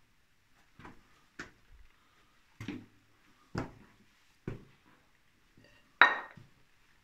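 Footsteps and scuffs on a rock floor in a narrow cave passage: six short, uneven knocks about a second apart, with a short echo of the rock around them. The loudest knock comes about six seconds in.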